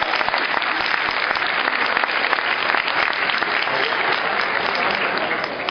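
Crowd applauding: a dense patter of many hands clapping, thinning out and getting quieter near the end.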